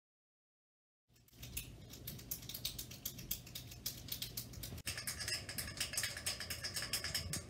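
Retractable ballpoint pens being clicked rapidly over and over, a dense run of sharp clicks starting about a second in and growing denser about five seconds in.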